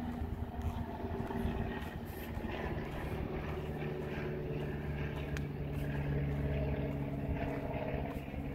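An engine running steadily, its hum shifting to a lower, stronger tone about two and a half seconds in.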